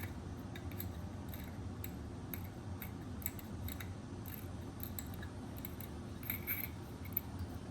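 Scattered light metallic clicks and scrapes from a Zippo lighter being handled while its old flint is removed.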